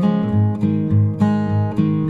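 Background music: acoustic guitar playing strummed and plucked chords, with a bass note pulsing about twice a second.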